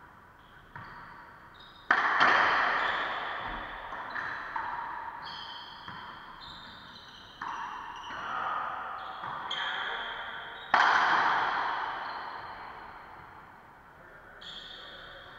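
Racquetball rally: sharp smacks of racquet on ball and of ball off the court walls, each ringing on in the enclosed court's echo. The two loudest hits come about two seconds in and near eleven seconds, with softer hits between.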